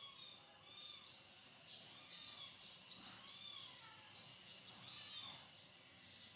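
A baby monkey's faint, short calls, each rising and then falling in pitch, repeated about twice a second and loudest about five seconds in.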